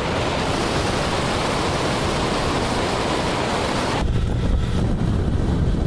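Wind rushing over the microphone of a moving motorcycle, a steady loud hiss. About four seconds in it changes abruptly to a deeper buffeting rumble.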